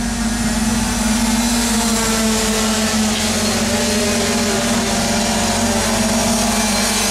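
A pack of 50 cc youth speedway motorcycles racing together, their small engines buzzing, with pitches rising and falling as the riders throttle on and off.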